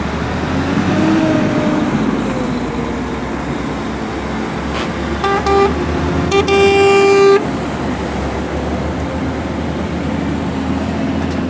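Trucks driving past with their engines running, and a truck horn sounding: short blasts a little past five seconds in, then a longer blast of about a second.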